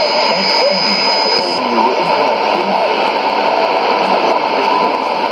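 Shortwave AM reception on a Sony ICF-2001D receiver: a weak broadcast on 6005 kHz, its programme faint under steady static hiss. A thin high whistle sounds through the first second and a half.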